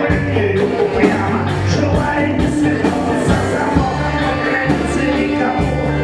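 Live rock band playing at full volume, with drum kit, electric guitar and congas over a steady bass line and regular drum strokes.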